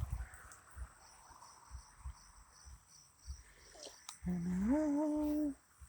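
Insects chirring steadily in the background with a few soft low knocks; about four seconds in, a hummed vocal sound that rises in pitch and holds for about a second.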